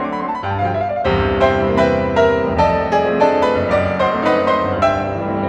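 Background piano music: quick repeated notes over chords, with a low bass part coming in about a second in.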